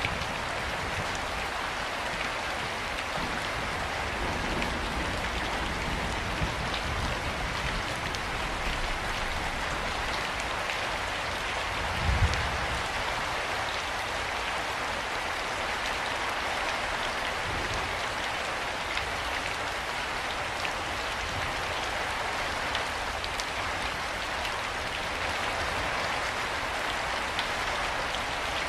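Steady rain falling, an even hiss of drops pattering on surfaces, with one brief low thump about twelve seconds in.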